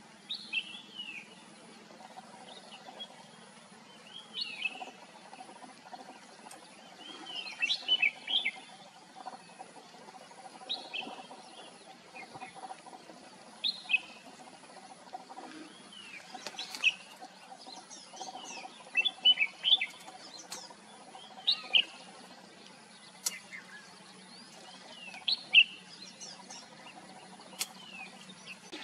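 Red-whiskered bulbul singing: short, clear whistled phrases that bend up and down in pitch, repeated every one to three seconds.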